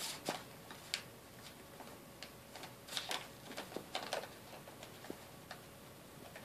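Ferret scratching itself and rolling on a rug: faint, irregular scratchy scuffles and light clicks of claws and fur, coming in uneven bursts.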